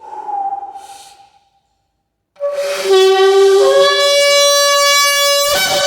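Ram's-horn shofar blown in one long, loud, brassy blast starting about two and a half seconds in. The pitch steps up slightly partway through, and there is a brief rough, airy break near the end before the note carries on.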